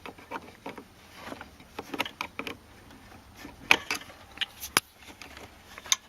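Irregular small clicks and knocks of hard plastic parts being worked by hand: a vacuum actuator arm being pried at to unhook it from a climate control flap linkage, which proves hard to do with one hand. The sharpest clicks come a little before the middle and again near the end.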